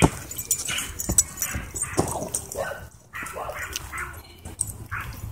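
Dogs wrestling and chasing in play, giving short, uneven yips and whines, with a sharp knock at the very start and a few lighter ones after it.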